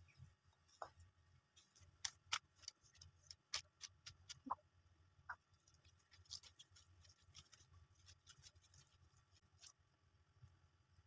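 Faint, scattered clicks and ticks of a gloved hand pressing and gathering semolina dough in a stainless steel plate, the sharpest a few seconds in, over a faint low hum.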